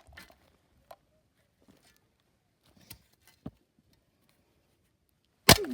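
A shovel striking a barrel-shaped Bluetooth speaker: a few light knocks, then one loud, sharp strike near the end with a short ring falling in pitch after it, as the speaker is being smashed apart.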